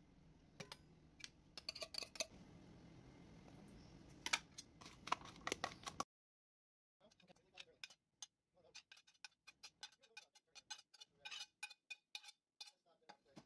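Ingredients being tipped and dropped into a stainless steel mixing bowl: scattered light clinks and taps against the metal. There is a second of dead silence about six seconds in, followed by a quicker run of small ticks.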